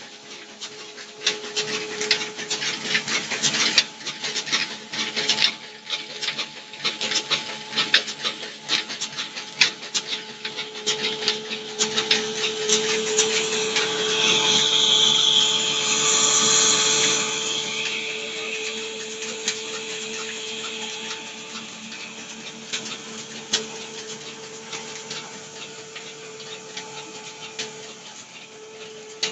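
Belt-driven grain grinding mill running and grinding grain: a steady whine with irregular crackling and rattling of grain in the mill. A rushing hiss of pouring grain swells a little past the middle, then the noise eases off.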